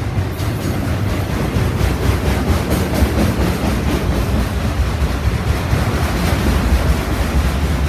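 Freight train of enclosed autorack cars rolling past: steady noise of steel wheels running on the rails.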